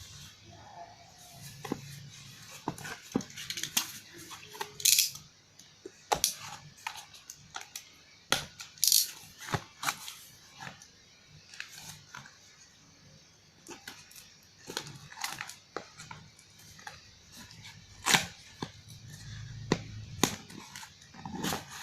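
Packaging being handled and torn open by hand: irregular tearing and rustling with scattered clicks and knocks, the loudest rasps about five and nine seconds in.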